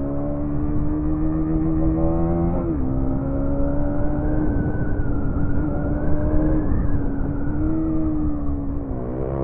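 Motorcycle engine running under way while riding uphill, its note climbing slowly, dropping sharply a little under three seconds in, then rising and falling with the throttle. A low rush of wind runs underneath.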